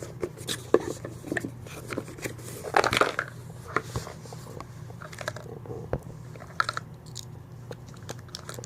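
Handling of the phone's box and packaging: scattered rustling, crinkling and light clicks and taps, the loudest rustle about three seconds in, over a steady low hum.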